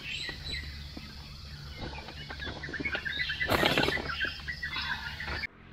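Birds chirping, many short calls in quick succession over a steady low hum, with a louder burst about three and a half seconds in. The sound cuts off suddenly just before the end.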